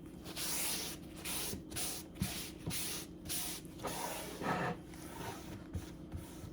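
A cutting board being wiped clean of garlic butter: a series of short rubbing strokes, each a brief hiss, with small gaps between them.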